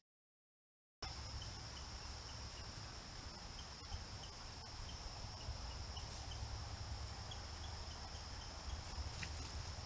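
After a second of silence, a steady high drone of insects, with a scatter of faint short chirps over it and a low rumble underneath.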